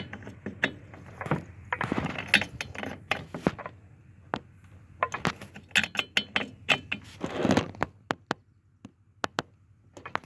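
Small metal parts and hand tools clicking and clinking while being worked on a chainsaw, with a rustling scrape twice. The clicks thin out near the end.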